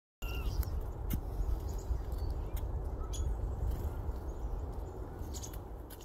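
Outdoor winter ambience: a steady low rumble on the microphone, a scatter of sharp little clicks, and a few faint high chirps from black-capped chickadees. It fades out near the end.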